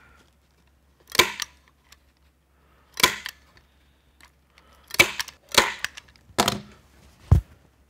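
Manual staple gun firing staples through upholstery fabric into the wooden stool top: six sharp snaps a second or two apart, the last with a deeper thud.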